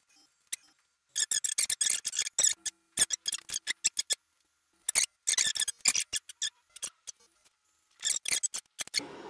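Wicked Lasers Ultra 7.5 W projection laser's scanners chattering in four bursts of rapid clicks, each one to two seconds long, as the laser draws its test-mode text.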